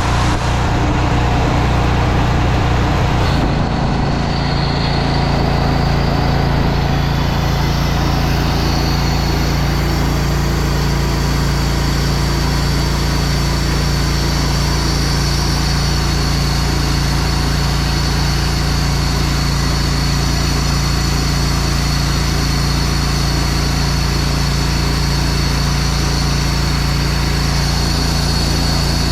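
Gas-engine pressure washer running steadily while its downstream chemical injector, fitted with a 1.8 orifice, draws solution. The sound shifts slightly about three and a half seconds in, when a steady high whine joins the engine hum.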